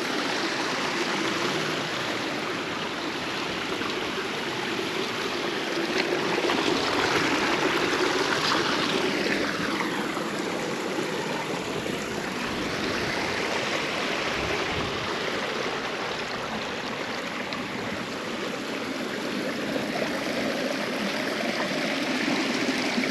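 A small stream running steadily over rocks, a continuous rush of water that swells a little for a few seconds about a third of the way in.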